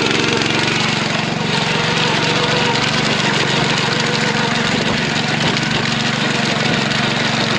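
Small single-cylinder petrol engine of a walk-behind power tiller running steadily while it tills a flooded paddy field.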